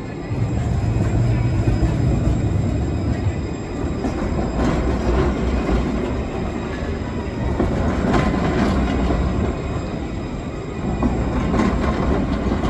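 Alstom Citadis tram rolling slowly past close by on grooved street rails: a steady low rumble of wheels and running gear, with a few sharp clacks from the wheels.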